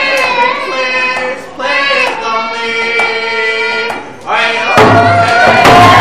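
A young girl singing long, high held notes into a microphone over a PA, with short breaths between phrases. About five seconds in, the crowd breaks into loud cheering and whoops.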